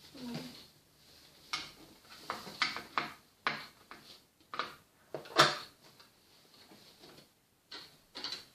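Small plastic toy furniture and accessories clicking and clattering against a plastic dollhouse playset as they are handled and set in place: a string of sharp knocks, the loudest about five seconds in.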